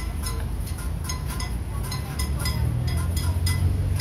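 Pots being banged and bells rung by a marching crowd: irregular metallic clanks and rings, several a second, over a steady low rumble.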